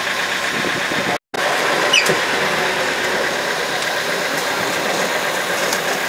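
Engine of a small road-train tractor unit running steadily as it pulls its carriages off, heard from the carriage behind. The sound cuts out for a split second about a second in.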